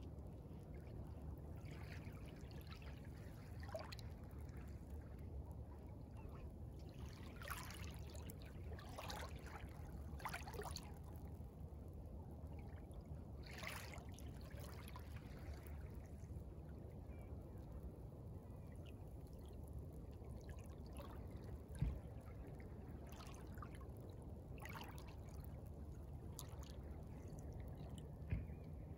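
Small waves lapping and washing over a pebbly beach, in scattered soft splashes, with a faint steady low rumble underneath. Two brief low thumps stand out, one about two-thirds of the way in and one near the end.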